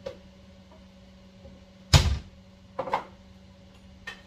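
A loud thunk about two seconds in as something is handled or set down in a kitchen, followed by a couple of lighter knocks, over a steady low hum.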